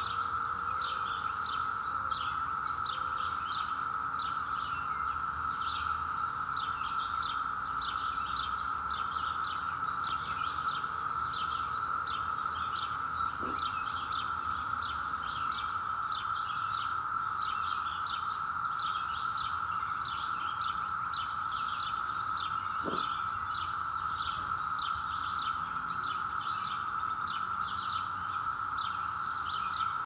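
A dense chorus of Brood X periodical cicadas: a steady, unbroken droning whine, with birds chirping repeatedly over it.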